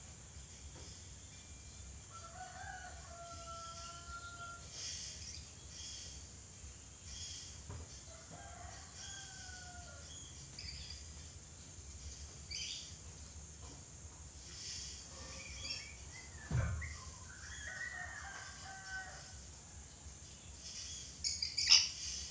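Red lory giving scattered short, shrill screeches, with a few longer drawn-out calls in between and a sharp loud screech near the end.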